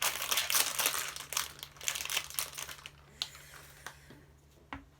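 Crinkling of ice cream packaging being handled and opened, a dense crackle for about three seconds, then a few sharp clicks.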